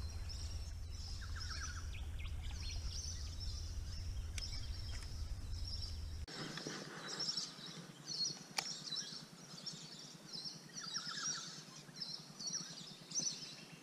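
Several wild birds chirping and calling over one another in bushland, with short repeated high chirps and a couple of brief lower trills. A steady low rumble sits under the first six seconds and cuts off abruptly, and there is a single sharp click late on.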